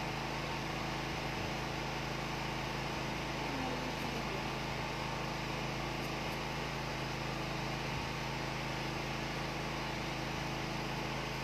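Steady room noise: a low, even electrical hum under a constant hiss, with no distinct handling sounds.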